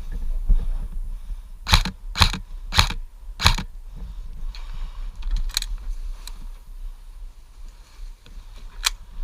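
Airsoft gun firing semi-automatic: four sharp shots a little over half a second apart, then two more single shots later, over a low rumble of wind and handling noise on the microphone.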